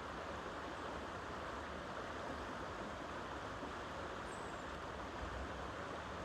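Steady rush of flowing river water, with one brief high chirp about four seconds in.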